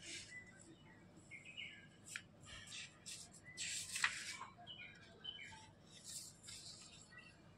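Small birds chirping in the background, short repeated notes, with rustling of paper sheets being handled and turned over, the loudest rustle about four seconds in.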